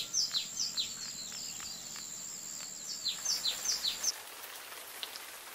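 Small birds chirping in quick, short falling notes over a steady hiss of rain. The chirping stops abruptly about four seconds in, leaving only the rain.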